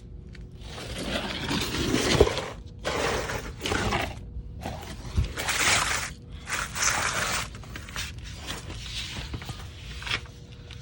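Irregular scraping and rustling noises in a series of separate bursts, each lasting up to about two seconds, with short pauses between them.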